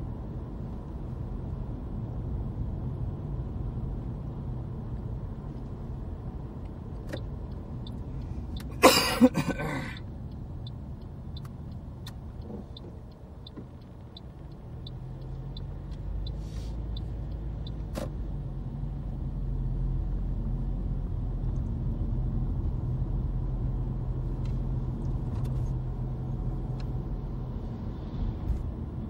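Steady engine and road rumble inside a moving car. About nine seconds in comes a loud, brief noise, and then light, even ticks about twice a second for several seconds, typical of a turn indicator.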